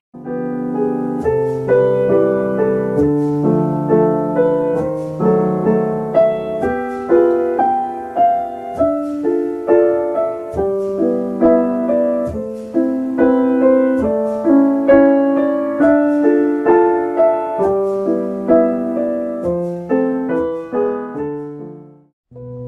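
Background piano music: a gentle melody of struck notes and chords that fades out near the end.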